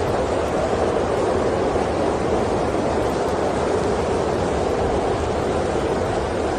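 Steady, unbroken white-noise bed for sleep, a deep even hiss heaviest in the low-middle range, with no crackles or other events.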